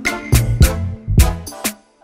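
Background music with a steady, punchy beat and heavy bass.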